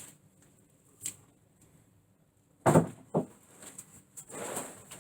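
An interior door being laid down flat on top of another door: a loud thud of wood on wood about two and a half seconds in, a lighter knock half a second later, then a softer noise near the end.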